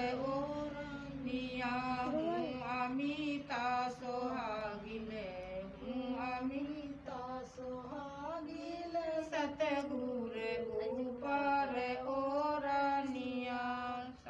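Female voice singing a devotional song (bhajan) in a slow melody of long held, gliding notes, with no break.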